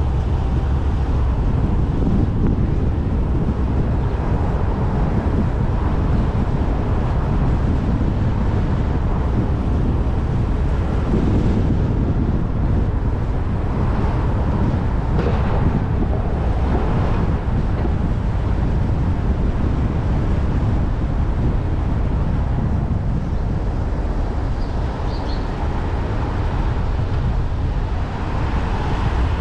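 Steady street-traffic rumble, heaviest in the low end, with wind buffeting the microphone and a few short swells of passing vehicles.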